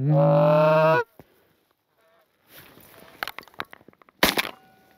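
One long, steady goose honk for about a second, then soft rustling with small clicks, and a single sharp shotgun blast about four seconds in.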